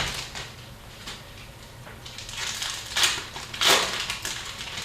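Foil wrapper of an Upper Deck hockey card pack crinkling and tearing as it is opened, in several bursts, the loudest about three and a half seconds in.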